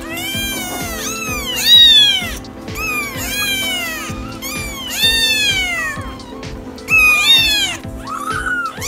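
Kittens mewing repeatedly, about seven high, thin mews that each rise and then fall in pitch, over background music.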